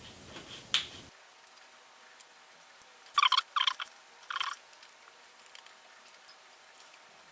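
Lee 100 mm plastic filter frame being handled and pressed together, giving sharp plastic clicks and crackles: one about a second in, then a quick cluster of three or four a little past the middle.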